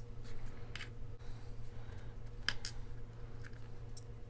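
Small sharp clicks and taps of pin tumbler lock parts and tools being handled during reassembly, a few scattered clicks with the loudest two close together about halfway through, over a steady low hum.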